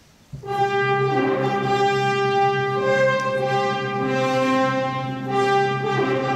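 Background orchestral music with held brass chords, coming in about half a second in.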